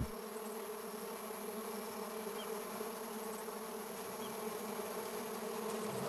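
Insects buzzing steadily, a low droning hum of several layered tones, with two faint high chirps about two and four seconds in.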